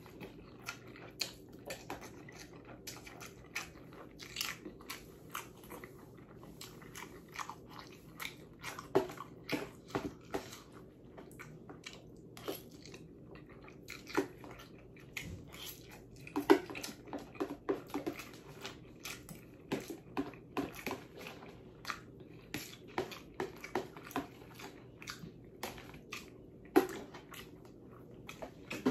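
A person eating noodles with the mouth close to the microphone: slurping, chewing and lip smacks come as many short, irregular sounds throughout.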